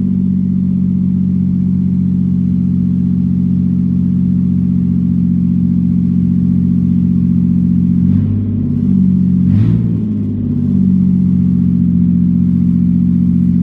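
1997 Toyota Avalon's 3.0-litre V6 running loud through open headers with no exhaust, at a cold fast idle. The idle holds steady, then dips and wavers for a couple of seconds before settling back.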